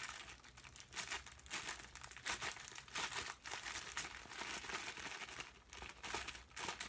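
A thin mailing envelope crinkling and rustling as it is handled and pulled open by hand, in irregular bursts of crackle.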